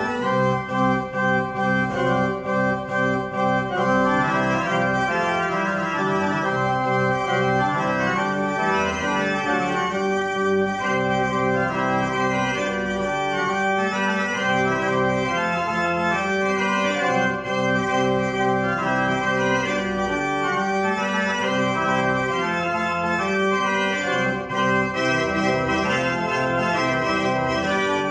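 Johann Wilhelm Grüneberg's 1793 baroque pipe organ playing a gigue, a busy stream of sustained notes over a steady bass, with short detached chords in the first few seconds.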